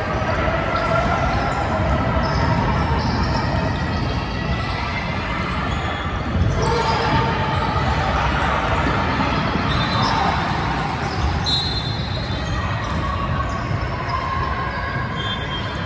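Basketball game noise in a gym: the ball bouncing on the court amid a steady background of crowd and player voices, with a few short high squeaks in the second half.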